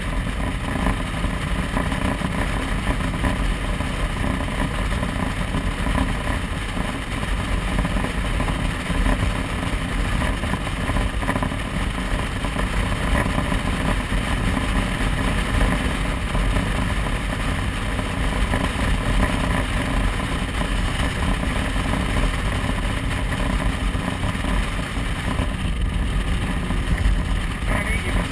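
Motorcycle running steadily while being ridden, its engine under a constant rushing noise that stays the same throughout.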